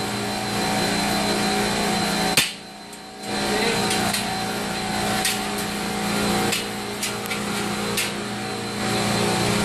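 Pipe wrench being levered with a steel strut-channel cheater bar, giving scattered sharp metallic clicks and knocks, over the steady hum of pump-room machinery. After a sharp click about two and a half seconds in, everything drops out for nearly a second before the hum returns.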